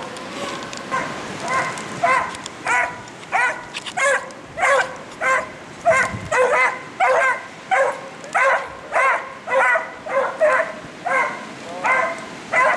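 Beagle baying on a rabbit's trail, a steady run of loud, rhythmic calls about every half-second to second, the hound giving tongue as it follows the scent. The calls start faintly and build about a second in.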